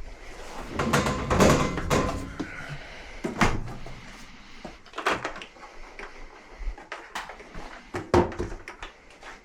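Knocks and rattles of hands handling parts at the bottom of a front-load washer by the drain pump: a busy clatter for the first couple of seconds, then separate sharp knocks every second or two.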